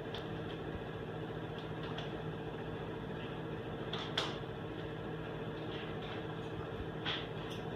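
Quiet room tone: a steady low hum with a few faint clicks and taps, the sharpest about four seconds in.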